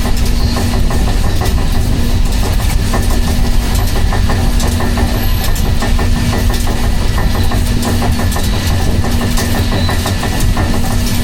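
Steady low rumble of a vehicle in motion, with a constant hum and rapid rattling clicks.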